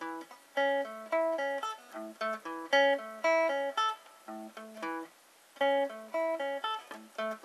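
Stratocaster-style electric guitar with a clean tone playing single picked notes of an A major string-skipping pattern, alternate-picked starting on a downstroke. The notes come one after another at a steady, moderate pace in repeating phrases, with short breaks about four and five seconds in.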